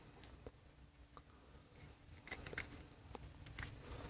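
Faint, light metallic clicks and taps of a small hinge pin being worked into the float lever and float bowl of a Linkert carburetor, the pin not yet seating. A few isolated ticks early on, then a busier run of clicks from about halfway.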